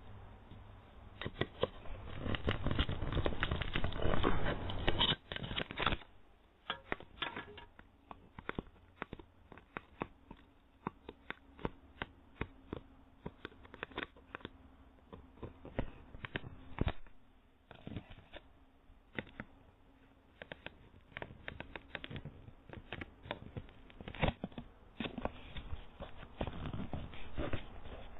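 Hands scraping, rubbing and tapping on a Ring video doorbell, right at its own microphone, as someone tampers with it to disable it. There is a dense stretch of scraping in the first few seconds, then scattered clicks and taps.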